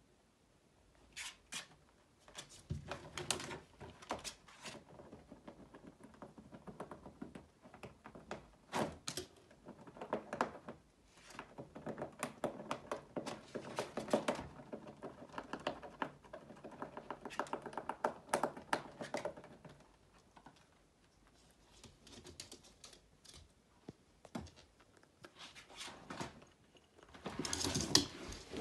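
A rabbit chewing and gnawing, giving bouts of rapid clicking and crunching strokes with short pauses between them and a louder burst near the end.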